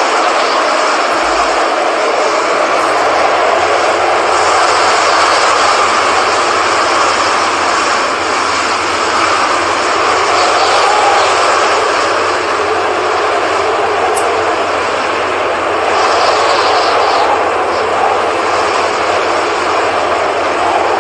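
Strong wind rushing steadily ahead of a hurricane's landfall, swelling and easing in slow gusts.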